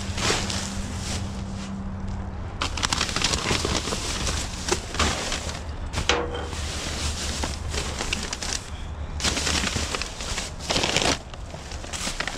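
White plastic trash bags crinkling and rustling in irregular bursts as they are pushed and hooked with a long-handled hand cultivator.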